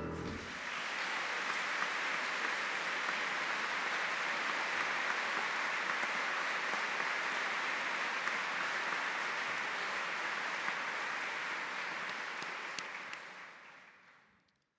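Audience applauding steadily, with the last grand piano chord dying away in the first moment; the applause fades out near the end.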